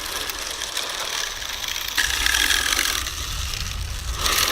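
Spreader cranking out lime, its gears making a rapid ratcheting whir.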